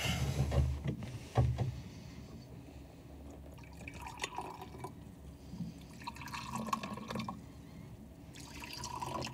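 Freshly brewed coffee being poured into cups in several short spells, a faint trickling and dripping.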